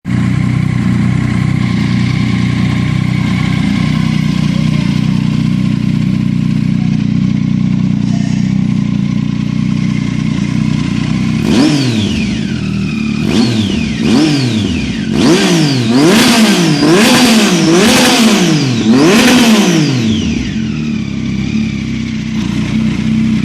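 Triumph Tiger 800's three-cylinder engine through a Hurricane aftermarket sport exhaust, loud. It idles steadily, then about halfway through it is revved in a quick series of throttle blips, each note rising and falling back. It settles to idle again and is blipped once more near the end.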